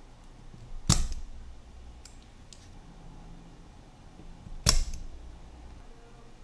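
Two sharp mechanical snaps about four seconds apart, with two faint ticks between them, from hand-tool work while a relay is being desoldered from the power window switch's circuit board.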